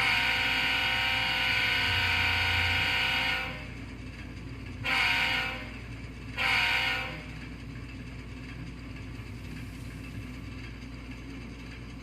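Simulated diesel locomotive air horn from an ESU LokSound sound decoder, played through the HO-scale model's small speakers: one long blast followed by two short ones. Under it runs the decoder's steady diesel engine sound.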